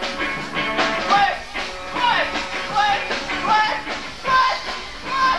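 Live rock band playing, with a singer's voice over guitar and drums.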